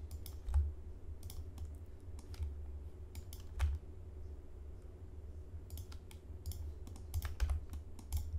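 Computer keyboard keys and mouse buttons clicking irregularly, in small clusters of a few clicks at a time, over a faint steady hum.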